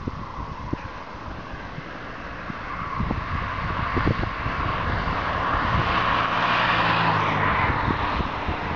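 A car driving along the road and passing close by: its tyre and engine noise grows to a peak about six to seven seconds in, then eases off.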